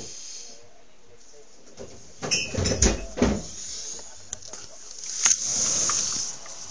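Phone handling noise: rubbing and bumping on the microphone while the phone is swung about, loudest a couple of seconds in and again near the end.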